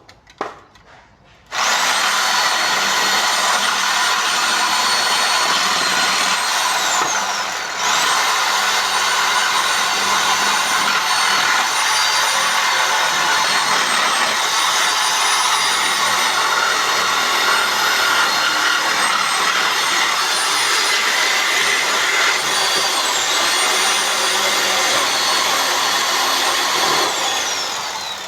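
Reciprocating saw cutting through pallet wood, its motor whining over the rasp of the blade. It starts about a second and a half in, winds down briefly about seven seconds in, and picks up again. It runs steadily until it winds down near the end.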